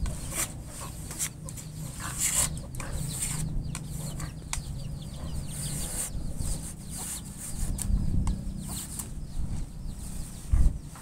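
Knife splitting and shaving a green bamboo strip into thin tying strips: irregular crackles and scraping of the splitting cane, with a steady low rumble underneath.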